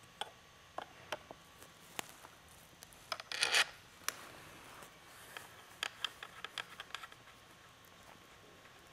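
Socket block adapter being fitted back onto a camera stabilizer vest: scattered clicks and taps of the hardware being handled, with a short rubbing scrape about three and a half seconds in and a quick run of clicks around six to seven seconds in.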